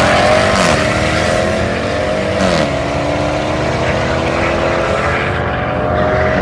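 Two cars accelerating flat out from a standing start down a runway, engines rising in pitch and dropping at the gear changes about a second in and again about two and a half seconds in, then holding high as the cars pull away.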